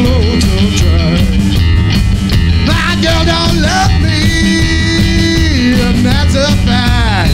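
Live rock and roll band playing: an electric guitar lead with bent and sliding notes over upright bass and drums.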